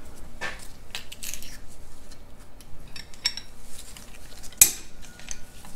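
Light metallic clinks and taps of steel studs and small parts being handled and fitted into a Farmall MD cast-iron cylinder head, with one sharper, louder clack a little over halfway through.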